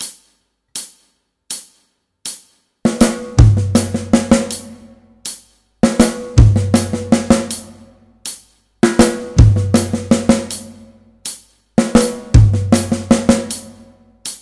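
Acoustic drum kit at 80 BPM: four evenly spaced count-in clicks, then a short single-stroke fill on the snare drum with a bass-drum kick, played four times in a row about every three seconds.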